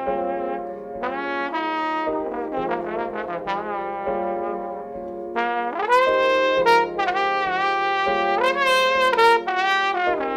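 Trombone solo: a run of notes with slides between them, over a steady backing track of held chords. The phrases about six and nine seconds in are louder and higher.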